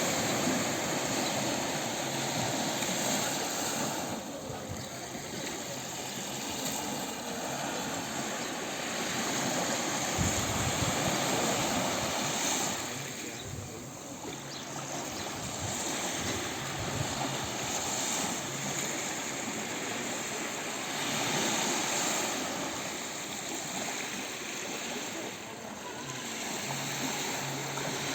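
Gentle sea waves washing onto a beach: a steady rush of surf that swells and eases roughly every ten seconds.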